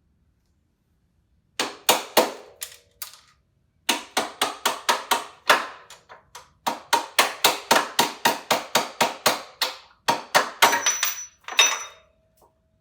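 Hammer blows driving out the rear shock's mounting bolt on a Yamaha Raptor 700 ATV, about four or five sharp strikes a second in three runs with short pauses. Near the end there is a brief metallic ring.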